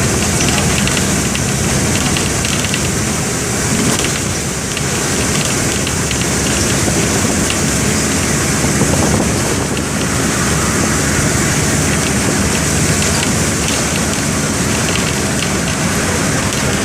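Mercedes-Benz OF-1722M bus's OM-924 LA four-cylinder inline diesel engine running with a steady drone, dipping briefly in loudness about four to five seconds in.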